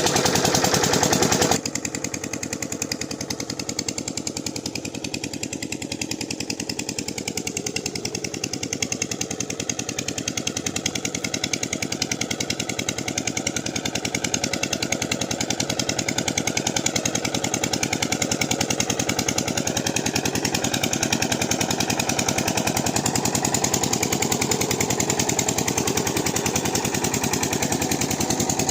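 8 hp Rajkot single-cylinder diesel pumpset engine running steadily with a fast, even chugging beat. The sound drops suddenly about one and a half seconds in, then slowly grows louder again.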